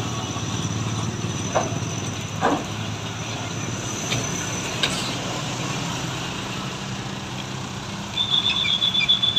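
Heavy truck traffic at the roadside: diesel engines running with a steady low hum, two short sharp noises early on, and a rapid high-pitched beeping for about the last second.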